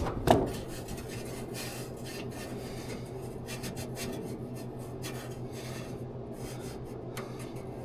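Faint, irregular scraping and rubbing from handling on the metal dash, with a single knock just after the start, over a low steady hum.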